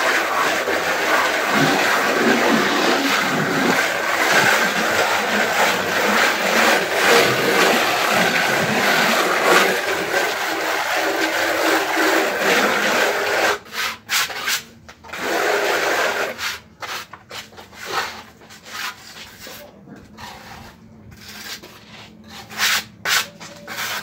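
Hand float rubbing freshly applied scratch-textured render (Reibeputz) on a wall: a continuous gritty scraping as the grains of the render are dragged across the surface. About thirteen seconds in, the scraping breaks into separate short strokes with pauses between them.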